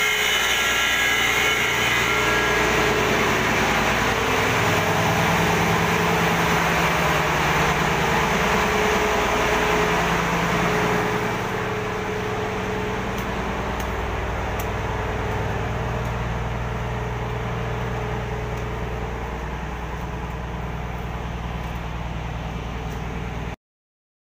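Steady loud hum of ship's engine-room machinery, several constant tones over a noisy rush. It drops a little about halfway through, then cuts off abruptly to silence just before the end.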